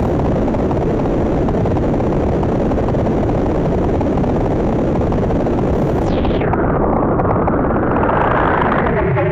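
Eowave Weather Drones 1.5 synth module putting out a loud, steady wash of noise with its low-pass filter wide open. About six seconds in, the filter closes sharply and muffles the noise, then slowly opens again. Right at the end a pitched synth tone cuts in.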